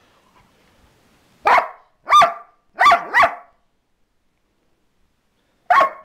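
Border Collie barking: four short barks from about a second and a half in, the last two close together, then another bark near the end.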